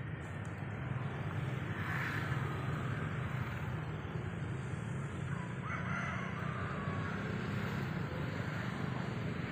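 Steady low outdoor rumble, with two short animal calls, one about two seconds in and another about six seconds in.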